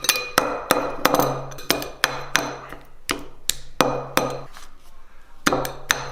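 Rapid series of sharp hammer-like knocks, about three a second, over a low steady hum; both stop for about a second near the end, then start again.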